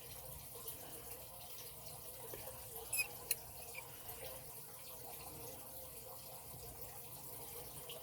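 Two small sharp metallic clicks about three seconds in, a third of a second apart, from the old Illinois Lock Company padlock being handled. Faint steady hiss under them.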